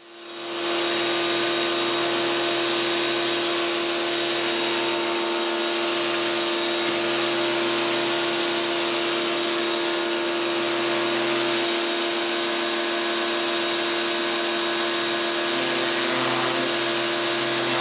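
Pressure washer running steadily: a motor hum under the loud hiss of its water jet. It rises in over the first second and then holds level.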